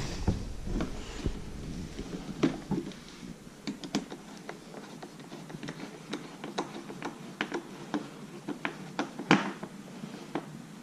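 Handling noise of a new air-tube boot being worked onto a RedMax EBZ8500 backpack blower: irregular light clicks and taps of parts being pushed and fitted, with a sharper knock about nine seconds in.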